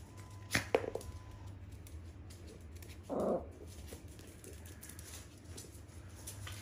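Two small long-haired terriers playing and tussling on a laminate floor: paws scuffling and claws tapping, with a couple of sharp knocks about half a second in and a short vocal sound from one of the dogs about three seconds in.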